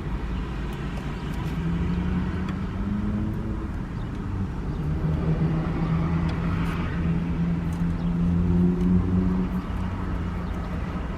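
A car engine running steadily with a low, even hum, a little higher in pitch for the first few seconds and then settling, with a few faint clicks over it.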